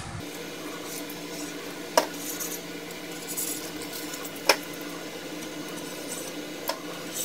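Linear ball bearings clinking against the printer's steel guide rods as they are handled and fitted: three sharp metallic clicks with faint clatter between them, over a steady low hum.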